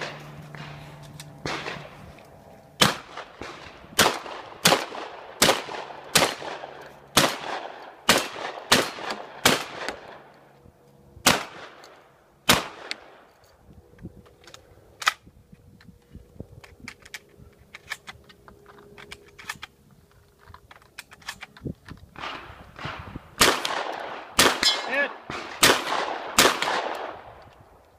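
Shotgun fired in rapid strings: about a dozen shots in quick succession, then a few more spaced out. After a quieter pause, another fast string of roughly seven or eight shots comes near the end.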